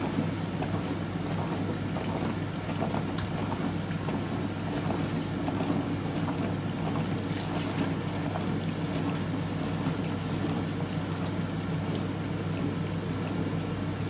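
Hotpoint Supermatic De Luxe 9414 twin tub washing, its motor giving a steady hum while the wash tub churns the sudsy water. In the second half, water is poured in from a bucket, splashing into the tub.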